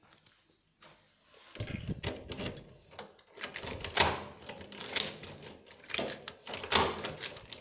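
Key being worked in a door lock: a run of sharp metallic clicks and rattles, loudest about four seconds in and again near the end, after a dull bump about a second and a half in.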